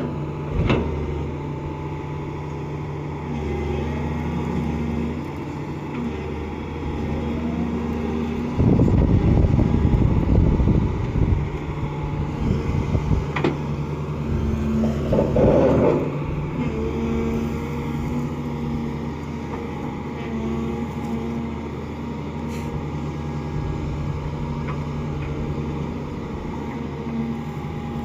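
Excavator's diesel engine running steadily while working, louder and rougher for a couple of seconds about nine seconds in and again briefly around fifteen seconds.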